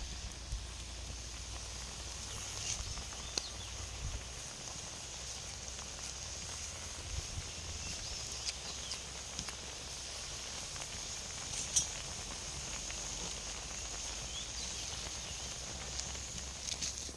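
Steady outdoor background hiss with a low hum beneath it, broken by scattered faint clicks and taps, the sharpest a little before the middle.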